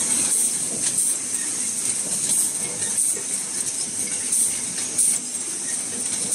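Automatic three-piece gallon can body production line running: a steady mechanical din with a short, sharp stroke repeating about every two-thirds of a second.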